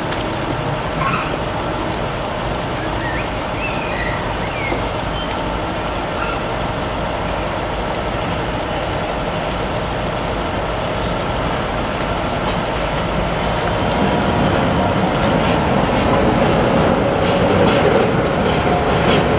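A Class 66 diesel locomotive's EMD two-stroke V12 engine running as it approaches with a train of empty stone wagons, growing louder over the last few seconds.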